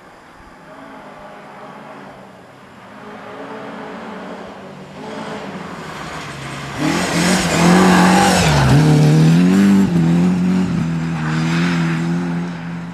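Rally car engine approaching at speed on a snowy stage, growing from faint to loud. Just past the middle the revs drop briefly, then climb again as the car goes back on the throttle and passes, and the sound fades as it moves away.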